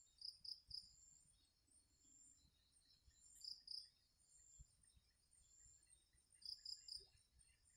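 Night insects chirping faintly in a steady high trill, with louder clusters of chirps three times: about half a second in, around three and a half seconds, and near the end.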